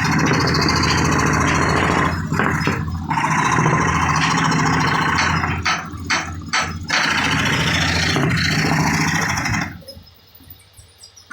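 An electric power tool cutting wood runs steadily, dipping briefly a few times, then stops near the end.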